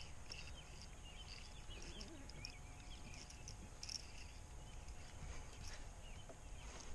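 Faint, many short chirps of small birds scattered through, over a low steady rumble.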